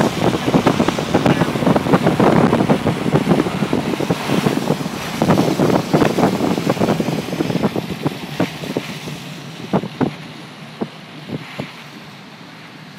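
Storm wind and rain battering a car, heard from inside the cabin, with a dense patter of sharp hits on the roof and windows that thins to scattered strikes after about eight seconds and dies down near the end.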